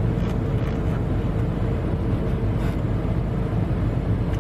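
Car engine running with a steady low rumble heard from inside the cabin, with a few faint short clicks or rustles.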